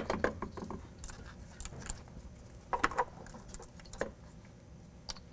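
Light plastic and metal clicks and rattles of a throttle body and its wiring harness connectors being handled, with a sharp snap right at the start as the MAP sensor connector is plugged on. A few more scattered clicks come about three and four seconds in.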